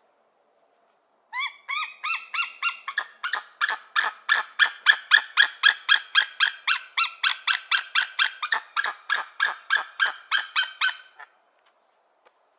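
Golden eagle calling: a rapid series of short, high, repeated notes, about four a second, for roughly ten seconds. The first few notes slide upward in pitch.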